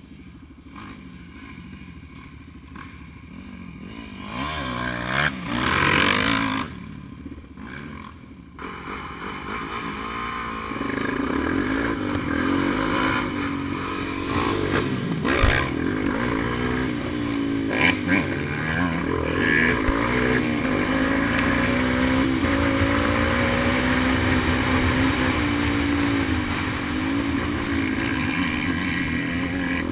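Dirt bike engines. They grow loud and drop away about five seconds in; from about ten seconds in, an engine heard up close runs hard, its pitch rising and falling as the throttle opens and closes, with a couple of sharp knocks.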